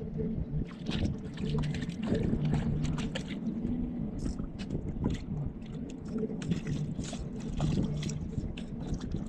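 Outboard motor running steadily, with water splashing and gurgling against the boat's hull.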